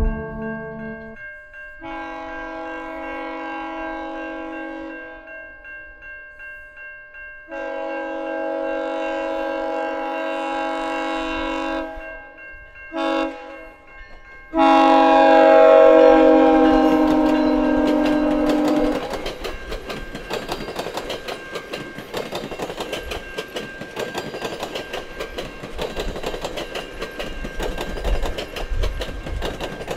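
GO Transit train's multi-chime horn sounding the level-crossing signal, long, long, short, long, the last blast the loudest; then the bilevel coaches' wheels clattering over the rail joints as the train passes close by. Music ends about a second in.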